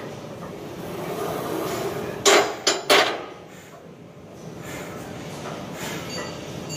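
Gym weights clanking: three sharp metal knocks in quick succession about two seconds in, over the steady background noise of a large gym.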